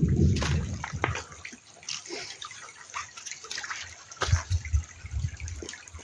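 Water splashing and sloshing in short irregular bursts, with a few low thumps a little after the middle.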